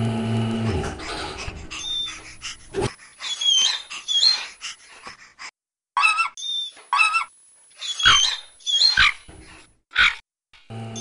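A cartoon dog's series of short, high whimpers and yelps with sliding pitch, coming in quick clusters. A low steady hum at the start fades out within the first couple of seconds.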